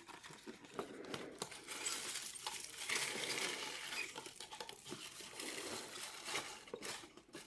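Packaging being opened by hand: a small cardboard gift box and its wrapping crinkling and tearing, with many small clicks and taps.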